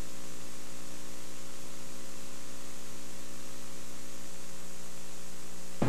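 Steady electrical mains hum with hiss, with no field sound or voices: the videotape's soundtrack has dropped out. The hum cuts off abruptly near the end as the normal sound returns.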